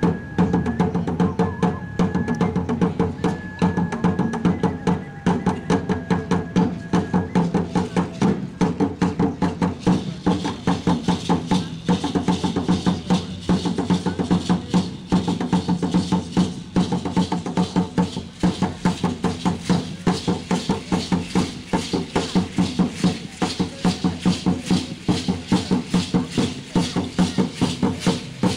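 Upright Aztec wooden drums (huehuetl) beat a fast, steady dance rhythm. About ten seconds in, a dense shaking rattle joins: the dancers' seed-pod ankle rattles as they rise and dance. A thin high tone sounds on and off during the first several seconds.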